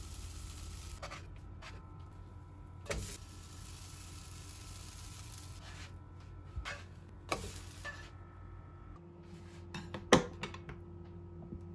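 Pancake batter cooking in a non-stick frying pan with a steady faint sizzle, and a few light knocks of a spatula against the pan. Near the end, one sharp click as a button on a Sharp rice cooker is pressed.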